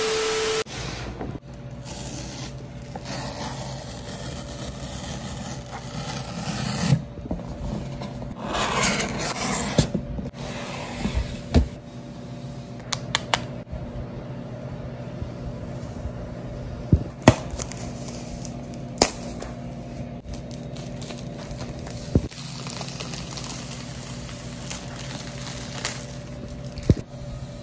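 Hands handling a cardboard MacBook Air box and its plastic wrap: fingers scraping and sliding over the box, rustling and crinkling plastic, with sharp clicks and taps here and there. It opens with a brief burst of static and a steady tone from a VHS-style title effect.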